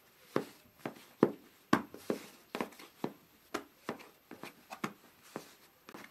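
A knife cutting floured bread dough into portions on a large metal tray, the blade striking the tray in an uneven string of sharp clicks, about two or three a second.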